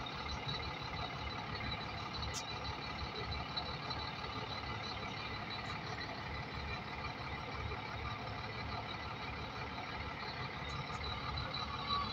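Zoomlion 50-ton truck crane's diesel engine running steadily as the crane lowers a cement silo onto its stand.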